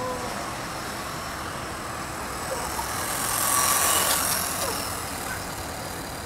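Electric motor of a radio-controlled motocross bike whining as it runs on pavement. The whine swells about three to four seconds in as the bike passes close, then fades.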